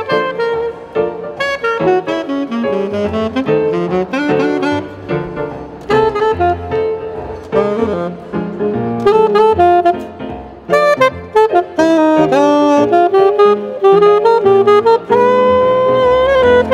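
Alto saxophone playing a melody of moving notes ending on a long held note, accompanied by a keyboard.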